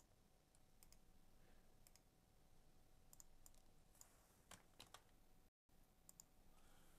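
Near silence with faint, scattered clicks from a computer mouse and keyboard, a few single ones and a small cluster about four to five seconds in.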